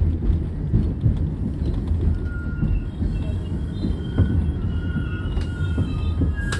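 A New York City Subway 1 train passing close alongside the platform: a heavy, steady rumble of the cars with wheel clatter. From about two seconds in, thin high squeals from the wheels come and go over it.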